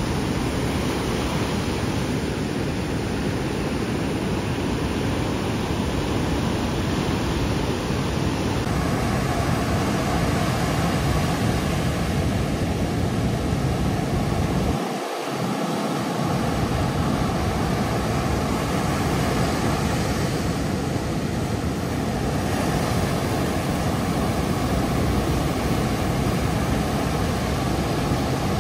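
Ocean surf breaking and washing up the shore: a steady rushing noise with a heavy low rumble that dips out briefly about halfway through.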